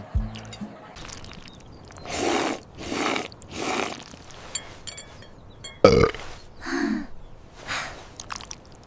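A girl burping: a few breathy bursts, then the loudest, sharp burp about six seconds in, followed by two shorter ones.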